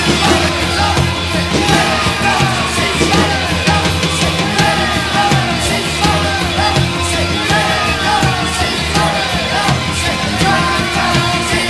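Recorded 1980 post-punk rock music: a steady drum beat and bass under a repeated short falling melodic figure.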